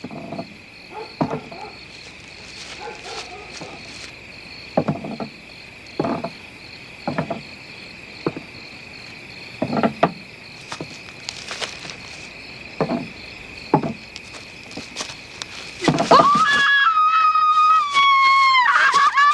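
Night insects chirr steadily under scattered thuds. About sixteen seconds in, a woman breaks into a loud, long, high-pitched scream that drops a little in pitch and wavers near the end.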